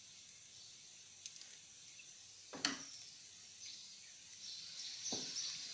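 Quiet open-air ambience with faint high-pitched chirping, broken by one sharp knock about two and a half seconds in and a softer thump a couple of seconds later.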